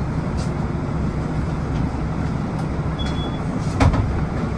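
Bus engine idling with a steady low rumble while the bus stands at a stop. A short high beep about three seconds in, and a single knock just before four seconds.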